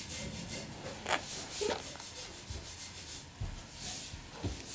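Close rustling and rubbing of fabric as the baby moves about in her padded seat right next to the microphone, with a few soft knocks and scrapes.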